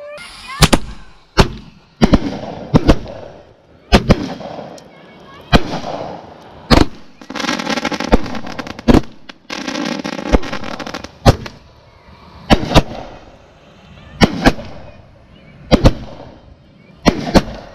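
Miracle Fireworks 'Sky High' consumer fireworks cake firing shot after shot, a sharp bang about every second. A denser, steadier buzzing stretch runs from about 7 to 11 seconds in.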